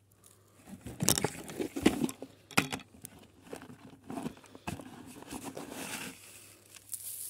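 Dry, stony soil crumbling and clods pattering as a sapling's root ball is worked loose by hand. There are several sharp knocks in the first few seconds, then a steadier scraping rustle that stops about six seconds in.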